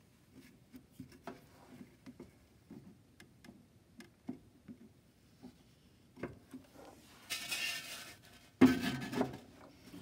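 Small scrapes and taps of a bent metal raking tool combing molten glass in the base of a ceramic microwave kiln. Near the end comes a short scraping hiss, then a louder clunk as the kiln's lid is set back on.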